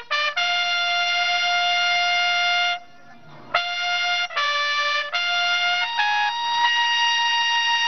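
A lone trumpet plays a slow military call of long held notes, the salute to the fallen during a minute of silence.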